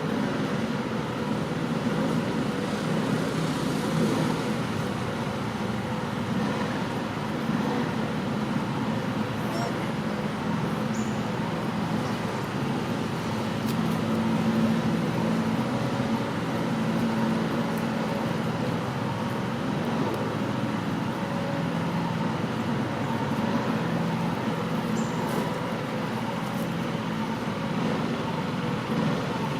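A steady low droning rumble with no breaks or sudden sounds.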